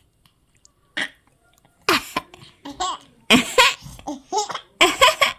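Laughter in quick bursts, starting about two seconds in, with a short breathy sound about a second in.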